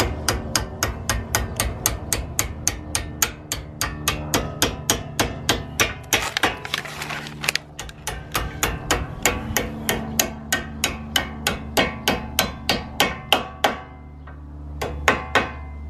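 A hammer striking metal again and again at about four blows a second, each blow ringing briefly. The blows stop briefly near the end and then start again, with a steady low hum underneath.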